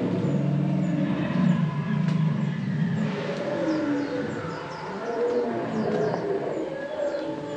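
Dinosaur sound effects: a steady run of low, wavering growls and roars, with many short high chirps over them.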